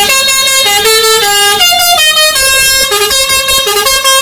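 Indonesian tour bus's "telolet" horn, a set of air horns playing a loud tune: held notes, several sounding together, stepping up and down in pitch every fraction of a second.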